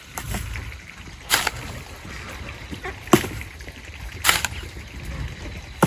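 Long-handled hoe chopping and scraping through a pile of wet cement mortar, with three sharp strokes a second or more apart.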